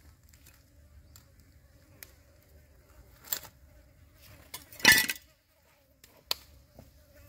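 A knife blade prying and scraping at the charred rind of a roasted jackfruit as its lid is lifted, with a few sharp clicks and a louder crunching knock about five seconds in. A faint steady hum runs underneath.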